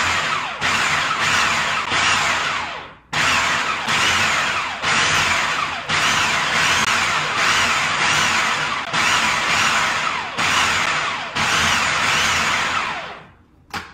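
Food processor motor running in bursts, its blade puréeing broccoli pesto in the bowl. It stops briefly about three seconds in, starts again, and cuts off near the end.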